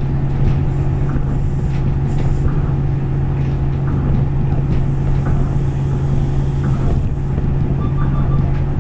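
Tokyo Monorail car running, heard from inside the cabin: a steady low drone with a constant hum. A few faint short beeps sound near the end.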